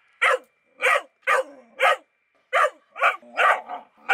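A dog barking in a run of loud, high yelps, about eight in four seconds, some bending in pitch like a wolf's yapping.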